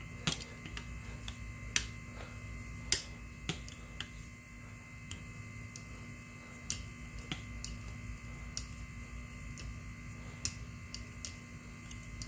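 Irregular sharp clicks and light taps of metal tools and small scooter parts being handled, a dozen or so spread unevenly, over a steady low hum.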